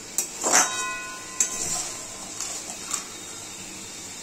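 Metal spatula scraping and knocking against a metal kadai as crab curry is stirred, in about six short strokes. The strongest, about half a second in, leaves the pan ringing briefly.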